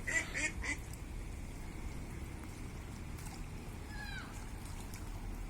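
A duck quacking in a rapid run of about four quacks in the first second, over a steady low rush of water. About four seconds in comes one short call that falls in pitch.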